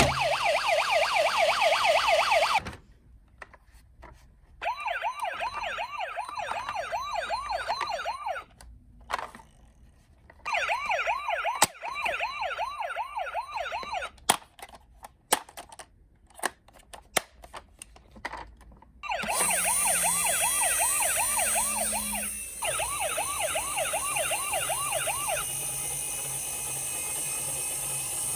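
Toy police car and ambulance minicars' electronic sirens sounding a fast warble in several bursts that stop and restart. Between bursts there is a scatter of clicks and knocks. The longest and loudest burst comes in the second half.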